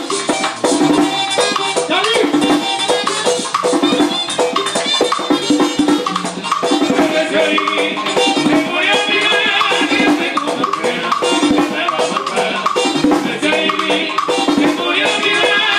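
Brass timbales, cymbal and block played with sticks in a salsa rhythm, over a salsa band recording with horn or vocal lines.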